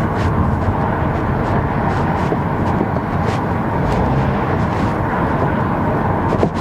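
Steady road noise from a 2007 Kia Rondo being driven, with a few faint knocks here and there: the front-end clunk that is traced to a worn front stabilizer bar link.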